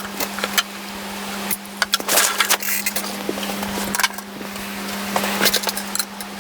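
Irregular clinks and knocks of metal parts and hand tools being handled during work on a faceting machine, over a steady low hum.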